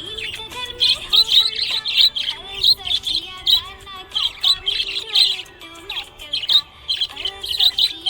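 Budgerigar chirping: a rapid run of short, high chirps repeated again and again, with a few brief gaps.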